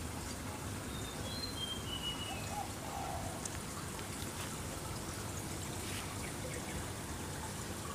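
Steady trickle of water in a koi pond. A short bird call of a few quick notes, stepping down in pitch, comes a little over a second in.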